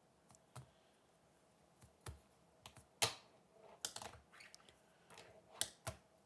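Fingerboard clacking on a hard surface: scattered sharp taps and clicks of the small deck and wheels, the loudest about three seconds in, with a quick flurry around four seconds and two more near the end.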